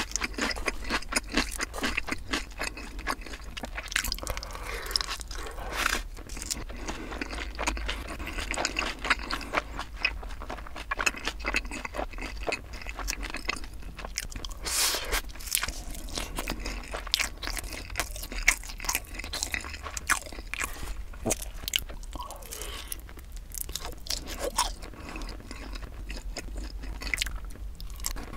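Close-miked chewing and biting of sauce-coated yangnyeom fried chicken and rice: a dense run of wet, sticky clicks and crunches, with sharper bites here and there.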